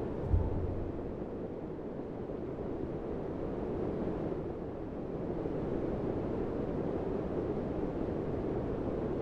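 Steady rushing of wind, with a short low thump about half a second in.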